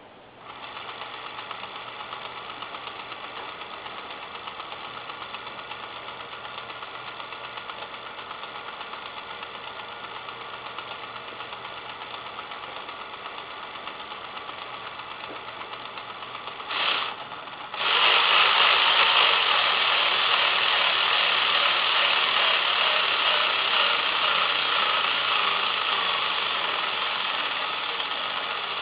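Star MP312F-24-A dot matrix printer mechanism running, its print head carriage moving with a rapid, even mechanical rattle. About two-thirds of the way through it stops briefly, then comes back louder and slowly fades.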